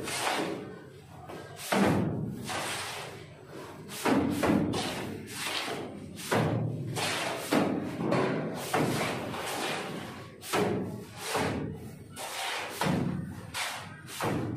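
Shovelfuls of wet cement-sand mortar flung against a brick wall, landing as a run of thuds about once a second at an uneven pace as two workers take turns.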